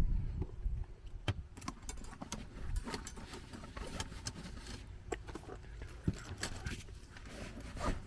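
Tools being handled and put back into a locksmith's tool bag: scattered clicks, clinks and rattles of metal tools, with a thump at the start.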